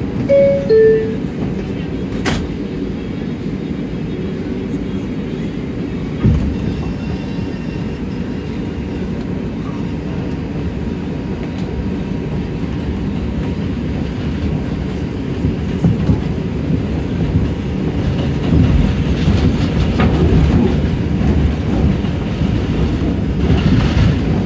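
New York City subway car's two-note falling door chime as the doors close, then the elevated train pulling out and running along the track: a steady low rumble with occasional knocks, the wheel clatter growing louder over the last several seconds.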